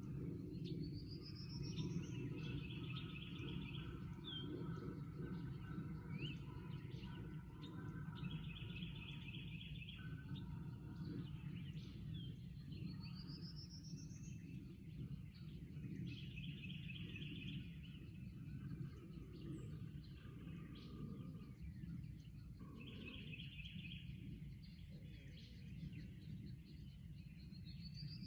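A small bird singing the same short phrase again and again, a rising whistle and a buzzy trill, repeated every several seconds, over a steady low outdoor background noise.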